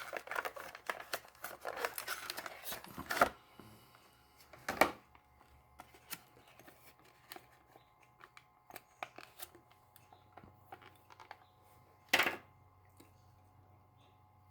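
A die-cast toy car's blister package being torn open: about three seconds of crackling plastic and card tearing that ends in a sharp snap, a second loud snap a moment later, then scattered light clicks of handling, with one louder snap near the end.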